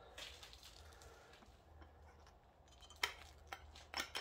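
Gloved hands working a motorcycle's speedometer and tachometer bracket into the gauge mount: faint rustling, then a few sharp clicks and knocks about three seconds in and near the end as the parts are pushed into place.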